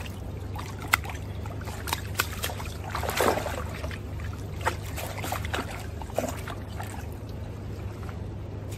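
Water splashing and dripping as a wet mesh keepnet is pulled and handled in a river, with scattered sharp splashes and knocks over the steady rush of flowing water.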